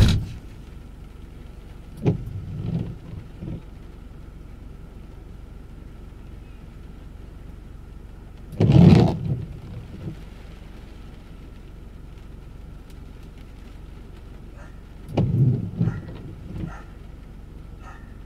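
Gusts of wind buffeting the car, heard from inside the cabin as several low swells of noise, the strongest about nine seconds in, over a steady low hum.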